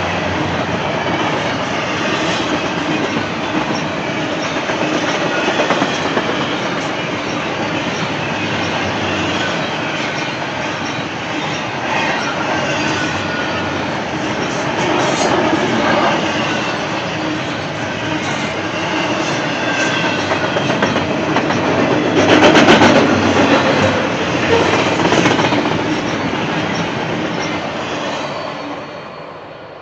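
CN double-stack intermodal container train rolling past: steady rumble of the well cars' wheels on the rail, with clicking over rail joints and a faint high wheel squeal. It swells loudest about three-quarters of the way through, then fades away near the end as the last car goes by.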